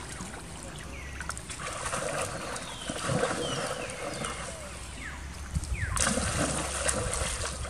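Water splashing and sloshing as macaques wrestle and move about in a pool. Short, high, falling chirps sound now and then, and the splashing gets louder about six seconds in.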